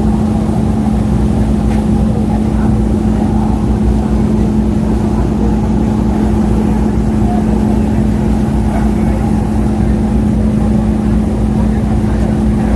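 Passenger ferry's engines running with a steady, unchanging drone: a constant hum over low rumble.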